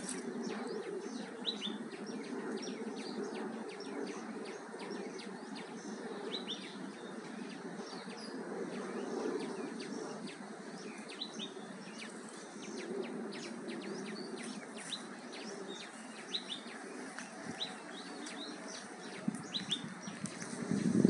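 Small birds chirping, many short high chirps scattered throughout over a steady low background rumble, picked up by a Xiaomi Redmi 4X smartphone's built-in microphone.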